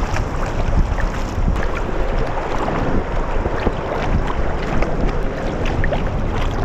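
Wooden Greenland paddle strokes splashing and dripping beside a sea kayak, under a steady rush of wind on the microphone.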